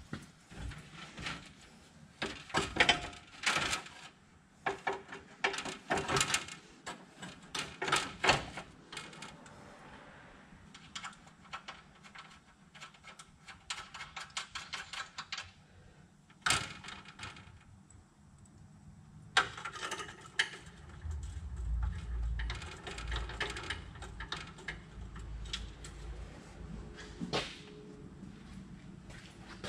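A metal truck grille being handled and fitted into place: irregular clanks, knocks and rattles of its bars and mesh, busiest in the first third and again about two-thirds of the way in.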